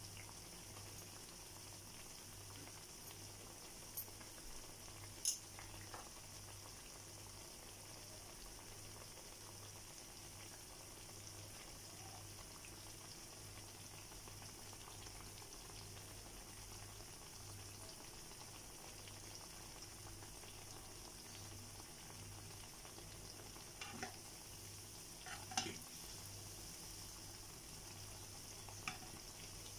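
Battered bananas deep-frying in oil in a small nonstick pan: a steady sizzle over a faint low pulsing hum. A few sharp clicks break in, the last of them near the end as a spatula is put into the pan.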